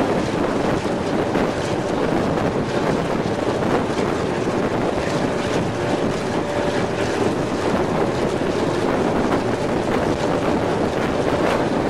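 Steady rush of wind on the microphone, mixed with the running noise of a moving T-class diesel-electric locomotive.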